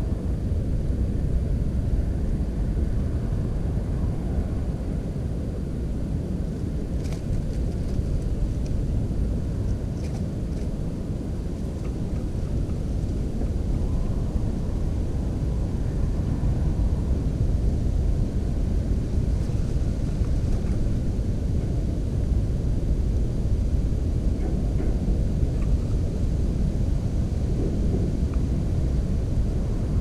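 Steady low rumble of wind buffeting the camera's microphone.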